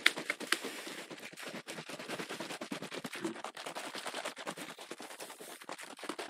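Plastic shaker bottle shaken hard to mix powdered energy drink with water: a fast, continuous clatter of rapid strokes.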